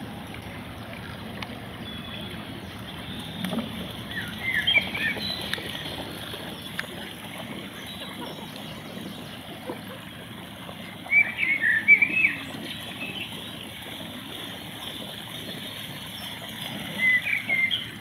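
Small songbird chirping in three short bursts, about four, eleven and seventeen seconds in, over the steady sound of a shallow stream running.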